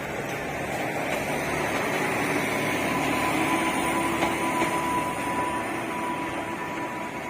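Hybrid passenger train pulling away and passing: a steady running rumble that swells to a peak midway and then fades, with a thin whine over it while it is loudest.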